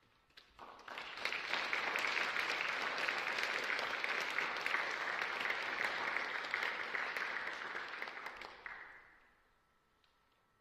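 Audience applause that swells within about a second, holds steady, then dies away about nine seconds in.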